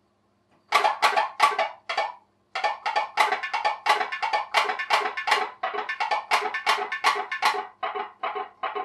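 Homemade pop-pop boat's jam-jar-lid boiler popping rhythmically, about three to four sharp pops a second, as its security-button diaphragm flexes with the steam pulses. The popping starts under a second in, breaks off briefly around two seconds, then runs on steadily.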